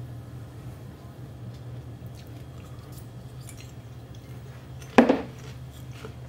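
Biting and chewing an ice cream cone topped with salted popcorn: faint small crunches, then one loud crunch about five seconds in. A low steady hum runs underneath.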